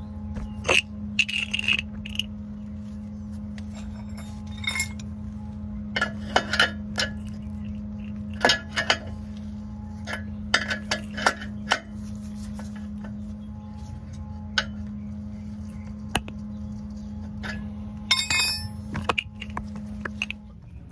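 Irregular metallic clinks and clicks of a wrench on a new rear (downstream) oxygen sensor as it is threaded and tightened into the exhaust pipe, over a steady low hum.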